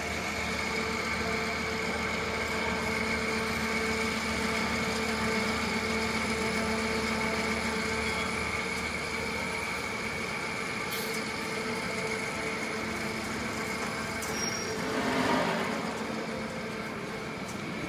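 Commercial washer extractor running on test: a steady machine hum from its belt-driven motor and drum, with a steady high whine above it. About fifteen seconds in, a brief louder rushing sound swells and fades.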